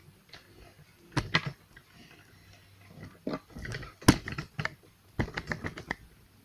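Irregular knocks and clicks of hard objects being handled and set down, the loudest about four seconds in, with a quick run of clicks near the end.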